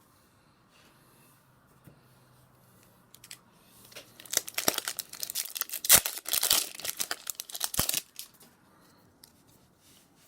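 Foil trading-card booster pack wrapper being torn open and crinkled by hand, a burst of crackling that starts about four seconds in, lasts about four seconds, and is loudest in the middle.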